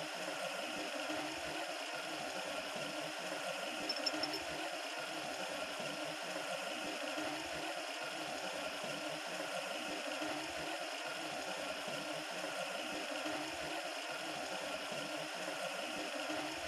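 Water aspirator running at full flow: a steady rush of tap water through the aspirator, drawing suction through the Büchner funnel and filter flask. A faint click about four seconds in.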